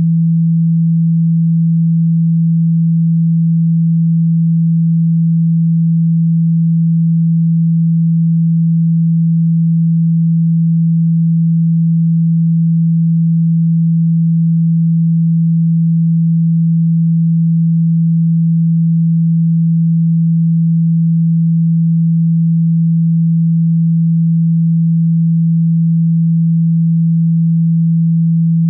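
A single steady low pure tone, a sine wave at about 160 Hz, held without any change. It is a speaker-cleaning tone, played through a phone's speaker to shake water and dust out of it.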